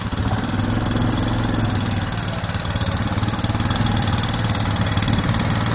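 Riding lawnmower's small engine running steadily with a fast, even chug.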